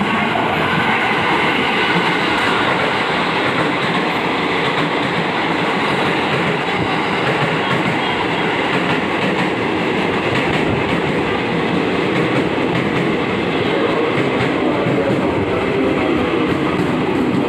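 Commuter Line electric multiple-unit train pulling into a station platform. Its wheels run steadily over the rails with a rattling clatter as the carriages pass close by.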